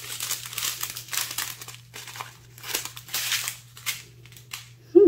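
Strips of small plastic bags of diamond-painting drills crinkling as they are handled and laid down, in several bursts about a second long.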